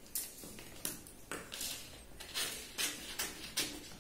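Scissors cutting through a paper pattern: a series of crisp snips, roughly two a second, as the blades close through the stiff paper.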